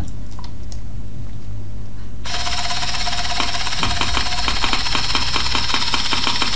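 3Shape TRIOS intraoral scanner starting to scan about two seconds in: over a low hum, a steady whirring hiss sets in suddenly, with a fast even rattle running through it.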